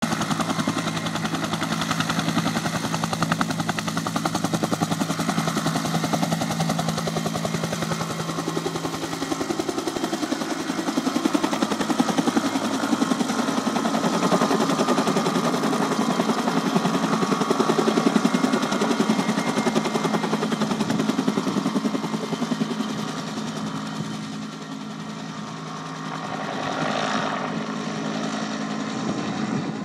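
Two-bladed helicopter flying overhead with a slung line, its rotor giving a fast, steady chopping beat over the turbine noise. The sound drops somewhat about three-quarters of the way through as it moves off, then swells again near the end.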